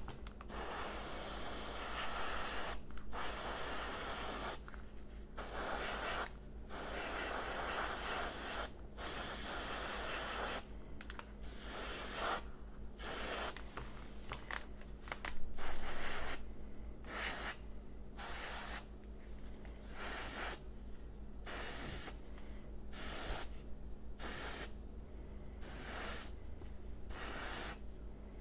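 Airbrush spraying paint in repeated short bursts of hiss, each from half a second to two seconds long, stopping and starting with brief gaps between. A steady low hum runs underneath.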